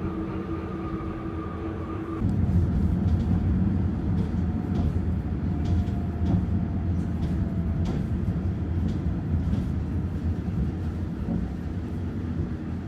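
Train running: a steady hum of several held tones for about two seconds, then a louder low rumble with occasional faint clicks.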